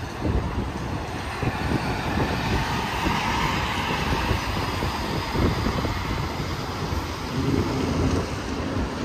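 Interstate highway traffic passing, a steady rush of tyre and engine noise that swells about three to four seconds in, with wind buffeting the microphone in uneven low rumbles.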